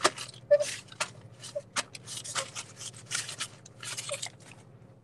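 Brown paper towel rustling and crinkling in irregular bursts as hands are rubbed dry with it, dying away about a second before the end.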